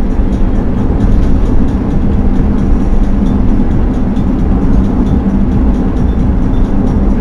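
A car cruising at highway speed, heard from inside the cabin: a loud, steady low rumble of tyre and engine noise.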